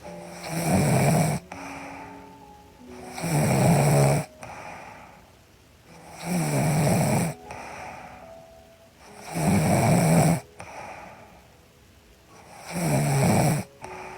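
A sleeping woman snoring with a steady rhythm: five loud snores, each about a second long and about three seconds apart, with quieter breathing between them. Soft background music with held notes plays under the snores.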